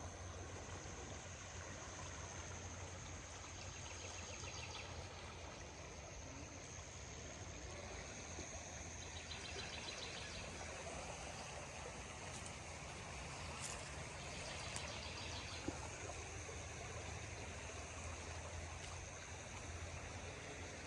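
Faint, steady rushing of the flooded river, with insects calling over it: a steady high-pitched drone and short, rapidly pulsing trills that come back every few seconds.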